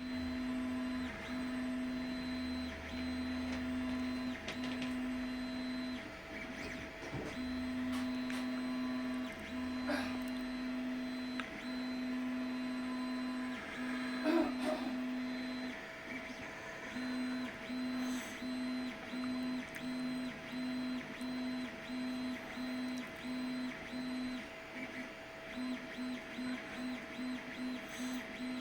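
Home-built mainframe-style computer running: a humming tone that switches on and off. The spells are long and uneven at first, then turn into a quick regular pulse, with a few clicks.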